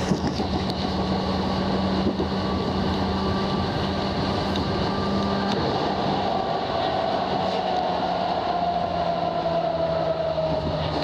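Electric commuter train running on the track, heard from the driver's cab: a steady hum and running noise, with a motor whine that slowly falls in pitch over the second half.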